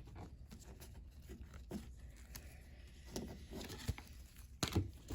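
Faint scattered clicks and light rustling of trading cards and plastic sleeves being handled, over a low steady hum.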